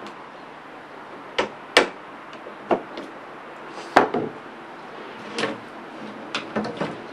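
Irregular sharp knocks on wooden porch floorboards, about nine in all and the loudest near the middle, as the tongue-and-groove boards are fitted and nailed down.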